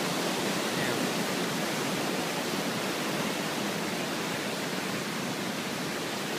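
Steady rush of churning floodwater from a creek in flash flood, surging through fallen branches and debris.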